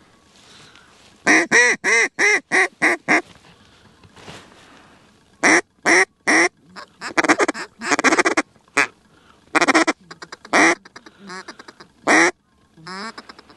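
Hand-blown duck call sounding hen mallard quacks to draw in circling ducks: a run of six loud quacks about a second in, then more strings of quacks and short, quick notes through the rest.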